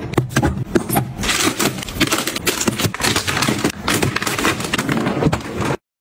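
Plastic food containers being handled and set into a freezer drawer: a dense run of clicks, knocks, rustles and scrapes that cuts off suddenly near the end.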